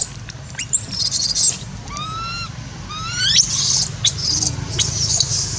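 Baby monkey crying in distress: a run of about five high-pitched calls, each gliding up and down in pitch.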